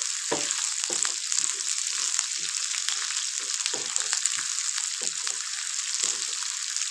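Sliced onions sizzling in hot ghee in a frying pan: a steady high sizzle, with a wooden spatula stirring and scraping across the pan two or three times a second.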